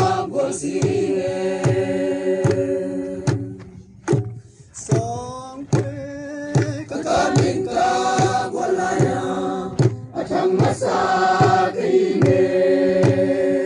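Voices singing a Zo folk dance song in chorus over a steady drum beat, the singing pausing briefly about four seconds in before the next phrase.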